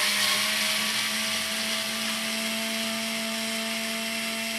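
Cordless electric screwdriver running steadily, backing a screw out of an RC truck's plastic chassis, with a constant motor whine.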